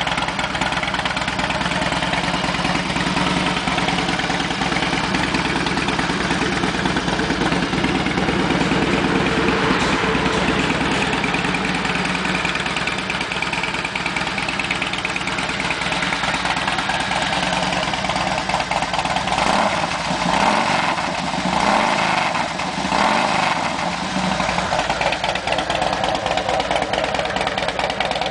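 A 2005 Harley-Davidson touring motorcycle's V-twin engine idling steadily, its sound rising briefly twice about two-thirds of the way through.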